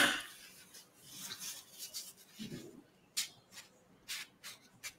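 Watercolour painting work: a sharp knock right at the start, then scratchy rubbing and a run of short, quick brush-like strokes on paper and palette in the second half.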